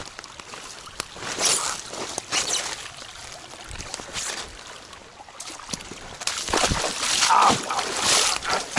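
Running footsteps splashing and squelching through a shallow forest stream and mud in waterproof sneakers. The splashes are irregular and get louder and closer together in the last couple of seconds.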